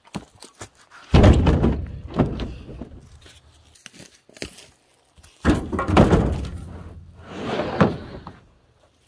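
Heavy firewood rounds dropped into a pickup truck bed: two loud thuds, each followed by a low rumble from the bed, then a scraping sound near the end.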